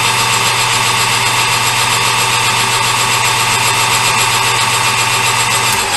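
Metal lathe running steadily during a turning cut on a small part: a steady motor hum with a higher whine from the spindle and gearing.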